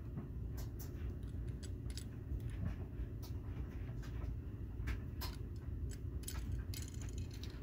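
Light, irregular clicks and ticks from a small diecast model truck being turned over and handled in the fingers, over a steady low rumble.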